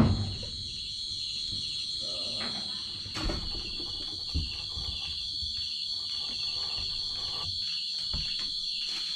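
Steady, high-pitched chirring of night insects such as crickets. A sharp chop of a heavy knife on a chopping block lands right at the start, and two lighter knocks follow about three and four seconds in as a pot is set on a small stove.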